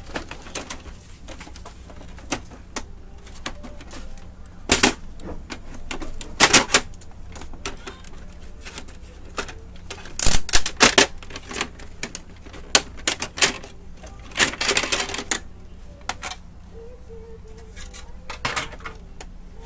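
Plastic clicks, snaps and knocks from a Brother DCP-T710W inkjet printer's casing and scanner unit as they are opened up and handled, an irregular clatter with the loudest bursts about five, six and a half, ten and fifteen seconds in.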